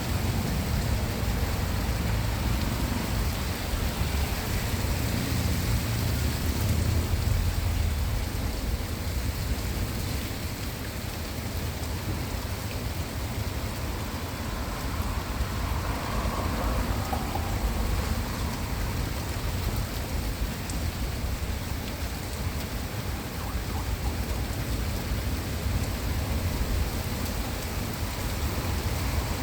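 Rain of a thunderstorm falling steadily on surfaces, an even hiss with a strong low rumble underneath.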